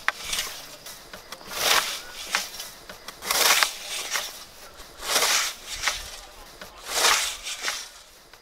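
A hand scythe mowing tall grass in steady, even strokes: each stroke is a hissing swish of the blade shearing through the stems, about one every second and three-quarters.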